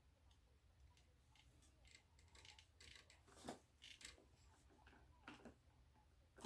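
Near silence broken by faint scattered clicks and ticks, a little louder about three and a half seconds in.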